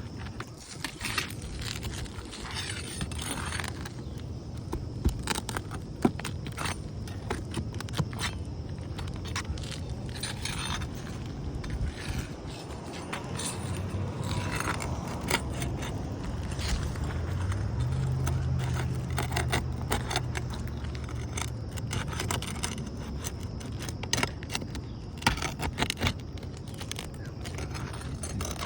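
Metal tool scraping and clinking against roofing nails and old asphalt 3-tab shingles as a nail is worked out from under a sealed shingle, in many short scrapes and clicks. A low steady hum swells in the middle and fades again.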